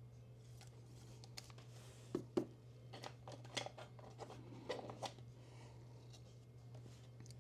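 Trading cards and their packaging being handled: scattered soft clicks, taps and rustles, mostly between two and five seconds in, over a faint steady hum.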